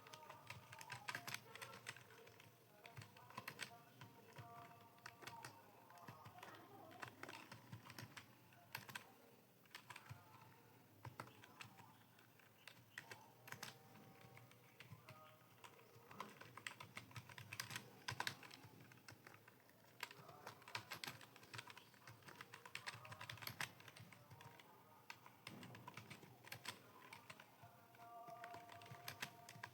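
Computer keyboard typing: quick, irregular runs of keystroke clicks with short pauses between them.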